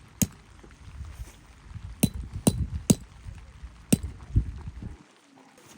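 Tent peg being hammered in: sharp metallic blows, one just after the start and then a cluster of four more spaced strikes from about two seconds in, with low rustling between.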